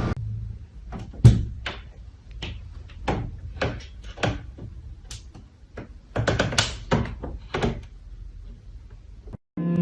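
A series of irregular knocks and thumps, about a dozen, the loudest just over a second in.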